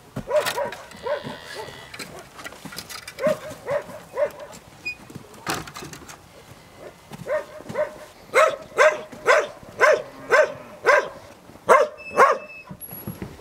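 A dog barking over and over: scattered barks at first, then a steady run of about two barks a second in the second half.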